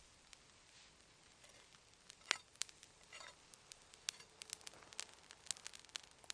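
A steak cooking over an open wood fire: irregular sharp crackles and pops over a faint hiss. One louder pop comes a little over two seconds in, and the crackles come more often after about four seconds.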